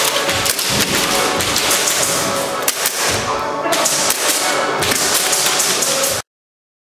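Loud edited soundtrack with heavy, regular hits over steady tones, most likely music laid over the footage, cutting off suddenly about six seconds in.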